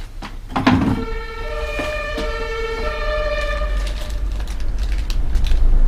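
Two-tone emergency-vehicle siren switching back and forth between a lower and a higher note, starting about a second in and fading out after about three seconds. A low rumble builds near the end, and a few sharp clicks come through.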